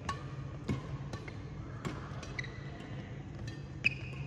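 Badminton rally: several sharp racket-on-shuttlecock hits, the loudest near the end, with sneakers squeaking on the court floor between them.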